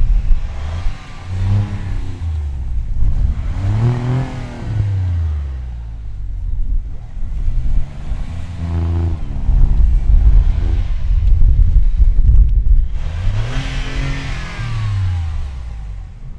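Alfa Romeo Giulia Quadrifoglio's twin-turbo V6 revving up and falling back again and again as the car tries to power its way out of deep snow where it is stuck.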